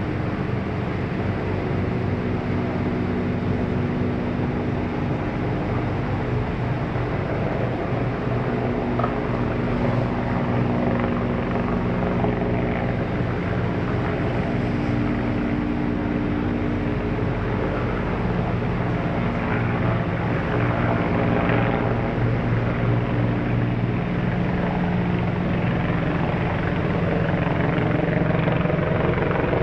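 Approaching helicopter, its rotor and engine sound growing louder toward the end, over a steady mechanical hum.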